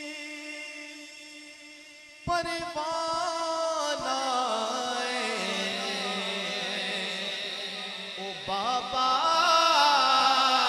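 A male naat reciter singing a hamd/naat into a microphone, heard through a PA. A long held note fades over the first two seconds, then a louder ornamented vocal line starts with a wavering pitch.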